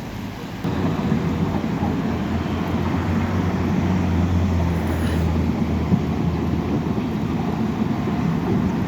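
Diesel engine of heavy earthmoving equipment running with a deep, steady rumble; it gets noticeably louder just under a second in and holds there.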